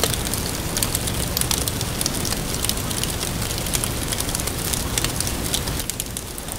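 Wood campfire crackling with many small, irregular pops over a low rumble, thinning out near the end.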